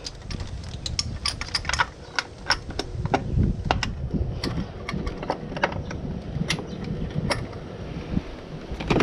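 Irregular sharp metallic clicks and clinks of hand tools and engine-bay parts being handled, over a low rumble.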